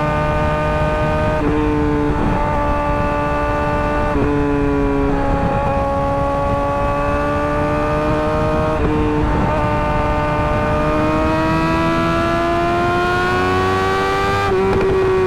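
Suzuki GSX-R 600's inline-four engine through an M4 GP slip-on exhaust, running at steady moderate revs. The note breaks briefly and steps in pitch several times, like gear changes, and climbs slowly near the end.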